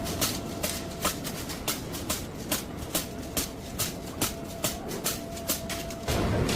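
Factory machinery: a steady hum with sharp metallic clicks repeating about two to three times a second, joined by a louder low rumble about six seconds in.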